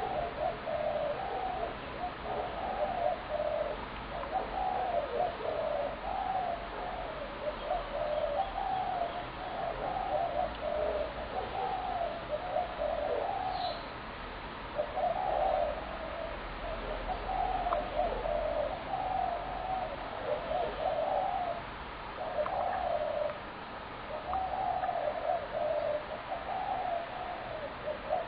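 Spotted doves cooing in repeated phrases, one after another almost without pause, with only brief breaks.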